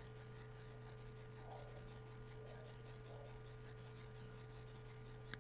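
Faint steady electrical hum with background hiss: room tone of the recording. A single short click sounds near the end.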